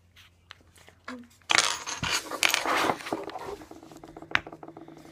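Small hard objects being handled close by: a burst of clattering and rustling about a second and a half in that lasts about a second and a half, then tails off into light clicks with one sharp click near the end.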